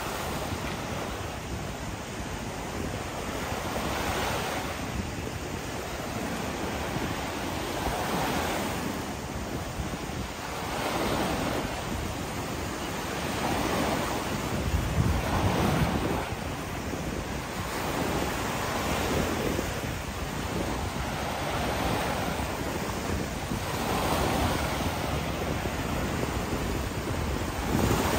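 Gulf surf breaking on the beach, the wash swelling and fading every few seconds, with wind rumbling on the microphone, strongest about halfway through.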